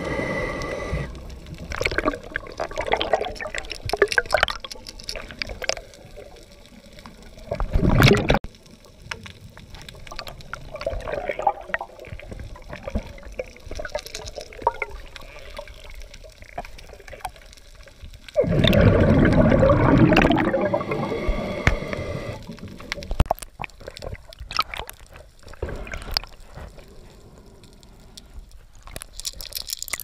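Underwater sound picked up by a camera: muffled water movement with scattered crackles, and bursts of bubbling, a short one about eight seconds in and a longer, louder one around nineteen to twenty-one seconds.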